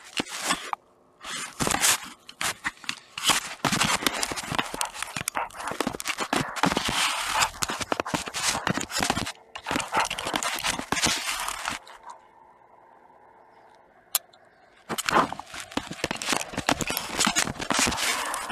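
A Dalmatian's mouth and fur right against a camera's microphone: dense, irregular scraping, crackling and clicking as she chews at the camera. It drops to a faint stretch about twelve seconds in, with one sharp click, then starts again about fifteen seconds in.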